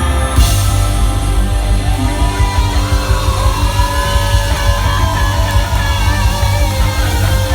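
Rock band playing an instrumental passage with guitar, bass and a steady drum beat.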